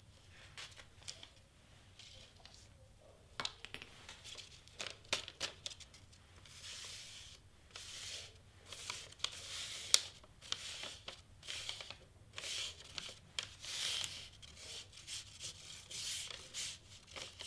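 A paper sheet folded and rubbed between the fingers over a flock-powdered cardstock piece, crinkling and rustling in uneven strokes that grow louder from about six seconds in, with one sharp click around ten seconds in.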